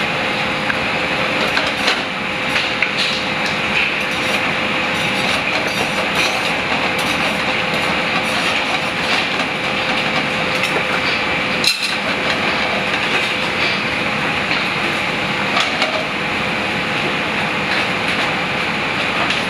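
Pappardelle sizzling in a sauté pan on a gas burner, over the steady hum of commercial kitchen ventilation, with small clicks of the utensil and pan as the pasta is stirred and tossed.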